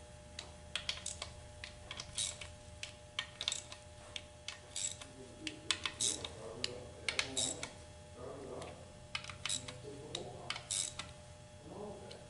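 Irregular light clicks and clinks of hand tools and small metal parts being handled during transmission assembly, with faint low mumbling in places.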